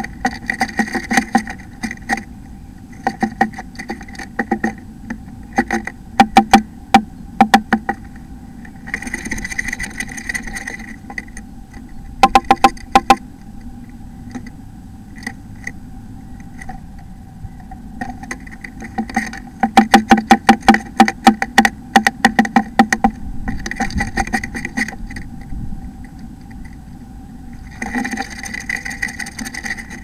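A blue tit inside a wooden nest box, heard close up: quick runs of sharp taps against the wood, about ten a second, with brief rustling in between. A steady hum runs underneath.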